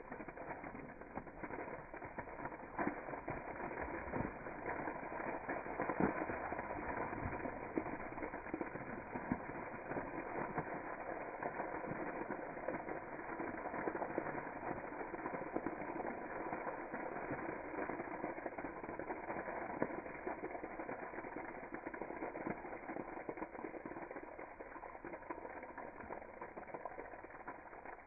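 A bottle of Sprite fizzing and foaming hard after Mentos are dropped in, a dense crackling hiss of bursting bubbles. It builds over the first few seconds and then slowly eases.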